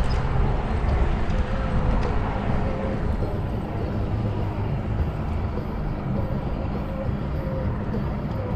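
A boat motor running steadily under a low rumble of wind and water noise.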